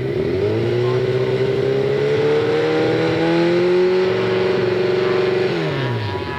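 Yamaha FZR600's inline-four engine revved up from idle and held at steady high revs for about five seconds for a static noise test, then let drop back to idle near the end.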